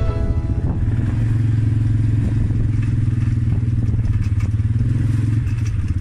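Small farm-bike engine running steadily at low revs while creeping along behind a herd of dairy cows, an even low hum with a fast pulsing beat.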